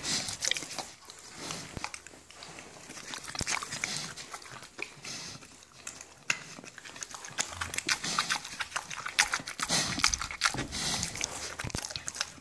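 A pig chewing and smacking on hand-fed treats: an irregular run of clicks and crunches.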